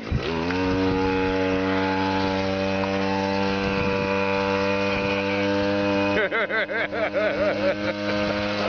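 Small engine of a long-shaft outboard motor pushing an inflatable boat, running steadily at one pitch; about six seconds in, its pitch starts to waver quickly up and down.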